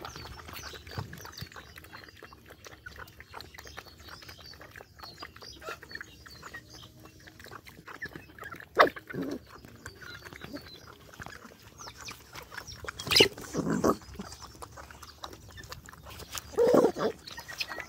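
Several dogs eating a wet rice slop from a tyre trough, with steady wet chewing, lapping and smacking. A few louder sudden sounds stand out, about nine seconds in, twice around thirteen to fourteen seconds, and near the end.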